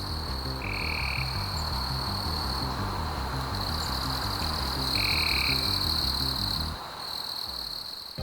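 Frogs and insects calling: a steady high-pitched insect drone with two short calls, one about a second in and one about five seconds in, over a low, even pulsing that stops near the end.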